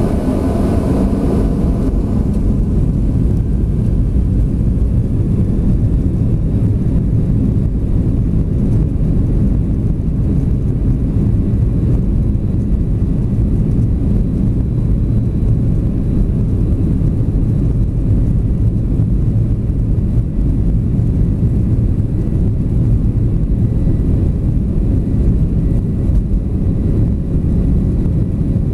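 Cabin sound of a Boeing 737-700 on its takeoff roll: the CFM56 jet engines at takeoff thrust make a loud, steady, deep rumble, heard from a seat over the wing.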